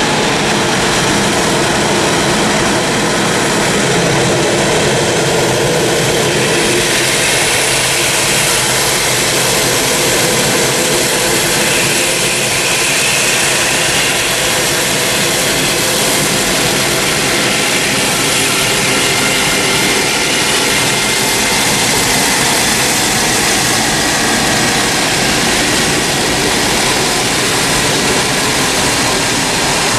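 Jet airliner turbofan engines running with a steady, loud noise. A faint high whine slides slowly lower in pitch through the middle.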